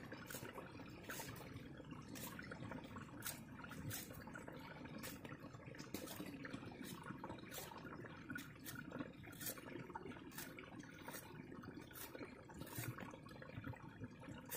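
A large knife shaving the skin off a chayote: short, crisp slicing strokes about once a second.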